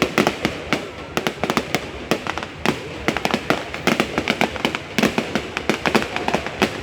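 A fireworks display going off in a dense, continuous barrage of sharp bangs and crackles, several a second.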